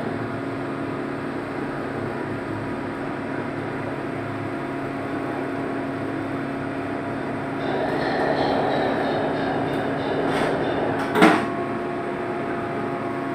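Tugboat diesel engines droning steadily, heard from inside the wheelhouse, swelling louder for a few seconds past the middle. A single sharp knock sounds about two seconds before the end.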